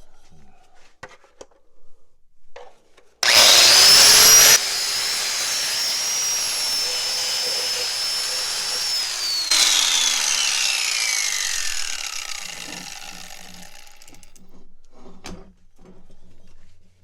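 A power tool with a wire wheel starts up about three seconds in and scours crud off metal loudly for a little over a second. It then spins freely with a steady high whine. It is switched off and winds down, its pitch falling over about five seconds.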